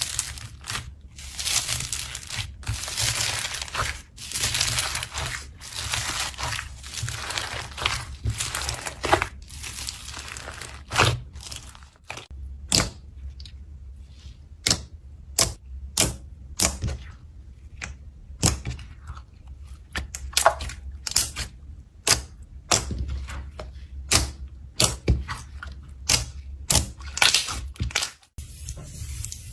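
Slime being squeezed and worked by hand: crinkly, sticky squelching at first, then from about a third of the way in many short sharp pops and crackles.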